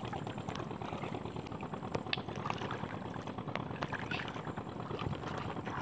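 Shallow tidal river water trickling and crackling steadily, with a few sharper clicks.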